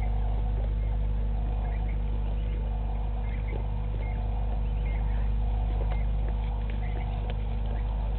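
Outdoor ambience dominated by a steady low hum, with scattered faint short high chirps throughout.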